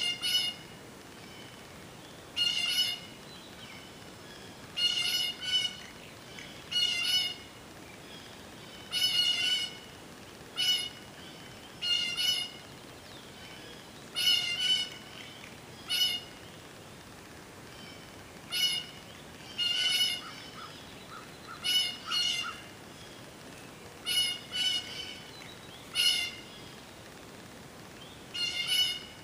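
An animal calling over and over: short, nasal calls with several overtones, repeated about every one to two seconds and sometimes doubled.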